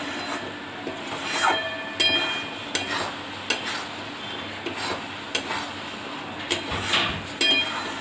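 Metal spatula stirring and scraping thick semolina halwa in a metal kadai, clinking against the pan about once a second with a brief metallic ring, over a steady faint sizzle. The halwa is being cooked down until dry.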